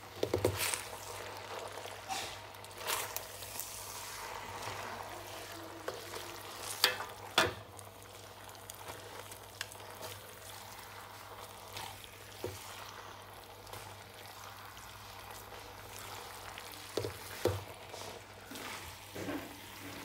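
Spaghetti and sauce sizzling in a hot wok as they are stir-fried with wooden chopsticks: a steady frying hiss with scattered clicks and knocks of the chopsticks against the wok, several in a cluster about seven seconds in and again near the end.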